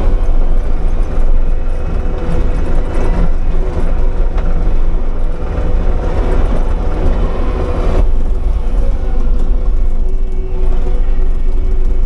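Kubota SVL75-2 compact track loader's diesel engine and hydraulic Bobcat Brush Cat rotary brush cutter running while mowing, heard from inside the cab: a loud, steady drone with a deep rumble. About eight seconds in, the upper hiss drops away somewhat.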